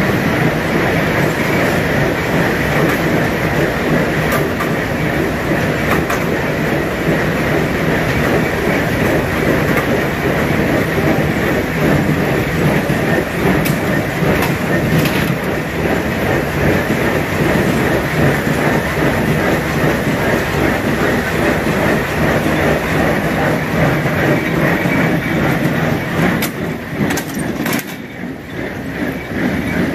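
Hay-handling machinery running together: a round-bale unroller shredding a round bale onto a conveyor that feeds a John Deere small square baler. It runs steadily and loudly, with a few sharp clicks, and dips briefly near the end.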